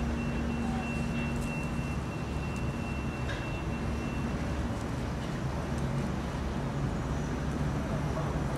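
Steady low hum with a thin high whine that stops about four seconds in.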